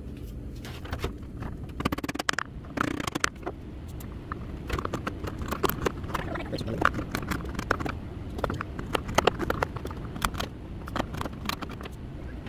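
Wood chisel cutting out the bottom of a shallow notch in scrap wood: a run of sharp, irregular clicks and scrapes, several a second, with a steady low hum underneath.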